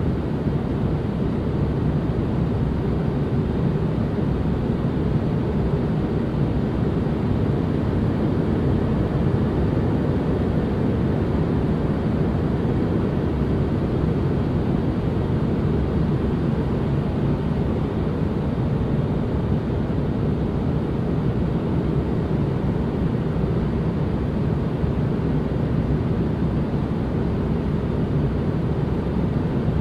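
Steady, unbroken white-noise ambience, weighted toward the low end so it sounds like a deep, even hush or rumble, with no changes or events.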